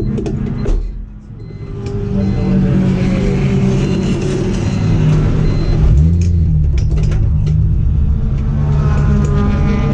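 Race car engine heard from inside the cockpit. The sound drops away briefly about a second in, then builds back up as the car accelerates, and the pitch shifts around six seconds in.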